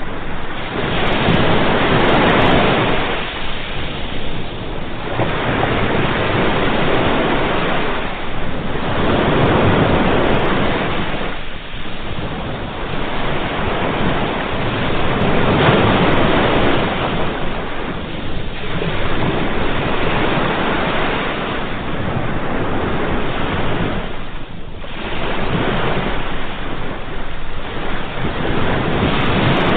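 Ocean waves breaking and washing onto the shore, one surge of surf after another every few seconds, with wind noise on the microphone.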